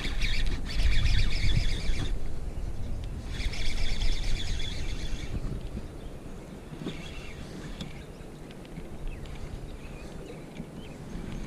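Baitcasting reel whirring in two long bursts, the first as the rod is cast and the second starting about three seconds in, then a few fainter short whirs. Wind rumbles on the microphone underneath.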